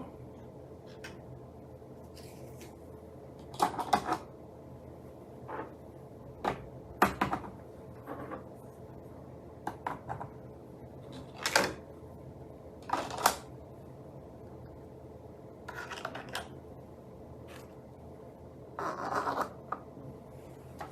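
Irregular clicks and short clatters of small hard parts being handled, set down and fitted together, over a faint steady hum.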